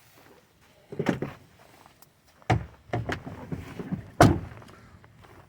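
A series of sharp knocks and thuds: a short cluster about a second in, another knock about two and a half seconds in, a run of smaller knocks after it, and the loudest single knock about four seconds in.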